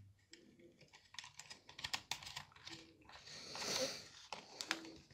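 Faint small clicks and ticks of a screwdriver and wire being worked at a contactor's terminal screws, with a brief soft scrape a little past the middle.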